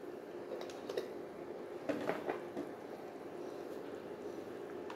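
Induction cooktop humming steadily under a pot of soup, with a few faint clicks and taps about two seconds in.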